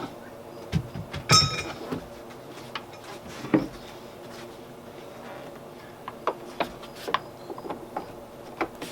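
Scattered clicks and knocks of metal parts being handled while a liftgate gas strut is fitted by hand, with one loud ringing metallic clank about a second and a half in and a run of small clicks near the end.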